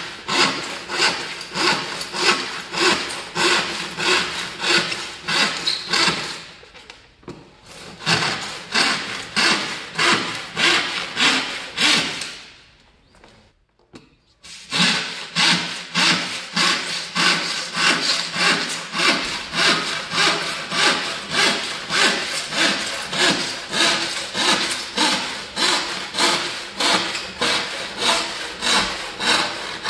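Western-style handsaw with a 0.7 mm thick blade ripping a wooden board lengthwise, in even strokes about two a second. The sawing dips briefly around seven seconds, stops for about two seconds near the middle, then goes on steadily.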